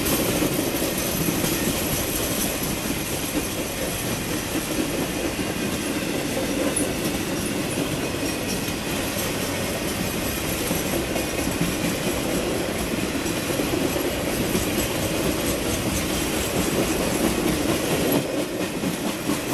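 Norfolk Southern RoadRailer train, highway trailers riding on rail bogies, rolling steadily past on steel wheels with a continuous rumble of wheels on rail.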